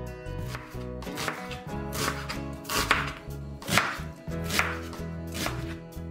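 Kitchen knife slicing onion on a cutting board: a series of crisp cuts, roughly one a second, over background music.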